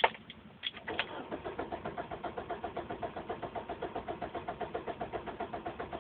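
A car that will not start: a single click, then from about a second in an odd, steady rapid clicking of about eight clicks a second, with no engine turning over. The owner hears the clicking coming from the back of the car.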